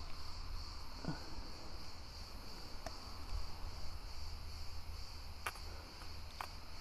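Steady high-pitched chirring of insects, with a low steady rumble beneath. A short falling sound comes about a second in, and there are a few small clicks later on as the plastic dressing bottle is squeezed over a foam applicator pad.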